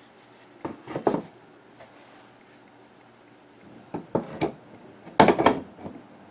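A plywood tool holder knocked into place on a wooden French cleat, wood clacking on wood in a short cluster about a second in. Then a pair of pliers set into the holder, clattering against the plywood in two clusters, the loudest a little after five seconds.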